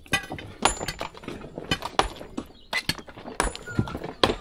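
Rocks clacking and knocking against one another as stones are set in a dry-stacked stone retaining wall: about a dozen sharp, irregular knocks, a few with a short ring.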